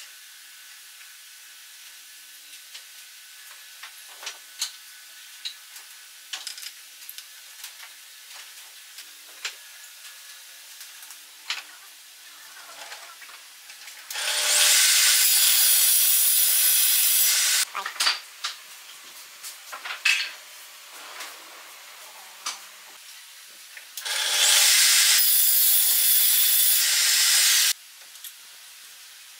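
Light taps and clicks of hands working a stop block on a wooden crosscut-sled fence. These are broken twice by loud, steady rushing noise lasting about three and a half seconds each time, which starts and stops abruptly.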